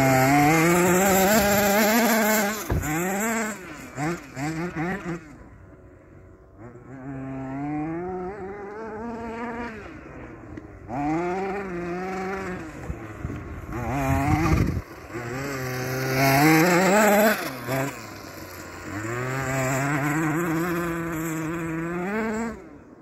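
Radio-controlled Hormann HT3 buggy's small two-stroke petrol engine revving up and easing off again and again as it drives. Its buzz climbs and falls in pitch, with quick blips of the throttle about three to five seconds in.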